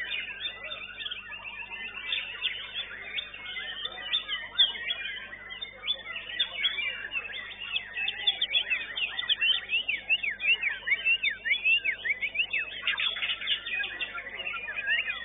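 White-rumped shama (murai batu) singing in full song: a fast, unbroken run of varied whistles, trills and chirps, most tightly packed in the second half.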